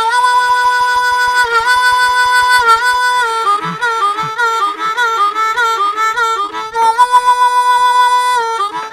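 Blues harmonica playing an instrumental break over a soundtrack, held notes with bends, with light rhythmic backing.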